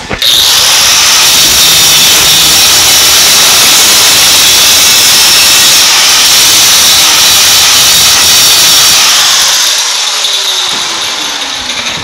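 Power grinder with a cut-off wheel cutting sheet steel: a loud, steady, high-pitched grinding hiss that eases off about nine seconds in, the disc's pitch falling as it spins down.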